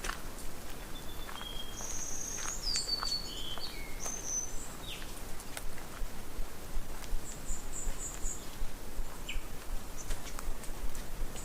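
Songbirds calling: several short whistled notes that slide in pitch, then a quick run of high chirps a little past the middle, over a steady outdoor hiss.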